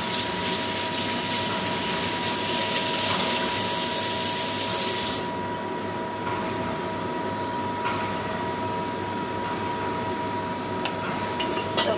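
Kitchen tap running water into a steel sink, turned off abruptly about five seconds in. A steady high hum continues underneath, with a few light knocks near the end.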